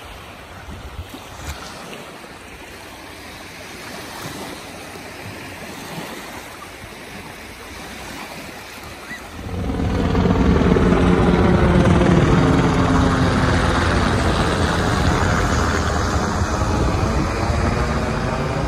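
Small waves breaking on a lake beach, with wind. About halfway through, a low-flying helicopter comes in suddenly and much louder, a steady pitched rotor and engine drone whose tone sweeps slowly as it passes overhead.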